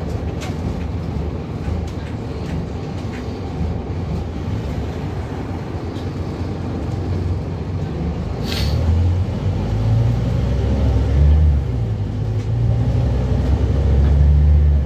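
Scania N230UB double-decker bus heard from inside, its five-cylinder diesel running at a stop and then working harder as the bus moves off; the low engine note gets louder in the second half. A brief air hiss about eight and a half seconds in.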